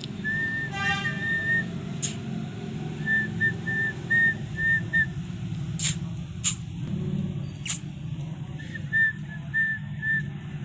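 Three runs of short, high whistled notes, each note at the same pitch, five or six notes to a run, coming near the start, in the middle and near the end. A few sharp clicks fall in between, over a steady low rumble.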